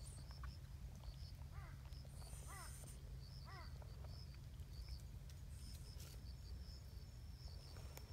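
Faint outdoor ambience: short high chirps repeat throughout, and three short rising-and-falling calls come about a second apart in the first half, over a steady low rumble.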